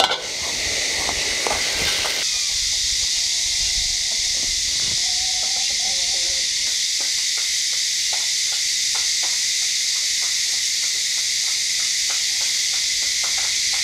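Egg-coated tofu slices frying in hot oil in a wok: a steady sizzle, with scattered small pops of spattering oil in the second half.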